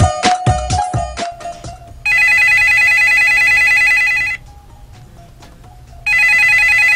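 Electronic dance music with a steady beat fades out in the first two seconds. Then a telephone rings twice, each ring about two seconds long with a two-second gap between.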